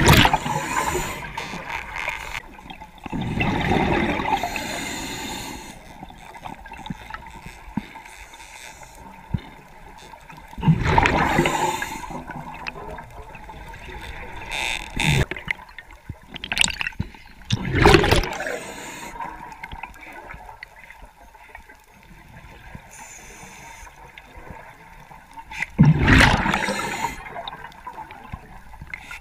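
Underwater sound of a scuba diver breathing through a regulator: loud gurgling bursts of exhaled bubbles every several seconds, with quieter water noise in between.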